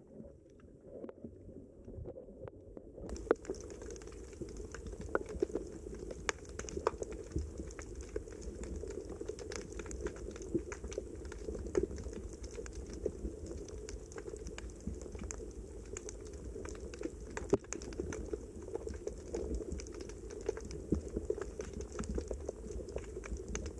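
Dense underwater crackle of many small sharp clicks and snaps over a low rumble, setting in about three seconds in.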